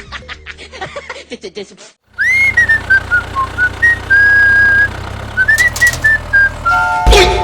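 Light background music with plucked notes stops, then a single pure whistle tone slides up, dips and holds in a wavering phrase for about five seconds. Near the end there is a loud knock, and a steady two-note train horn begins.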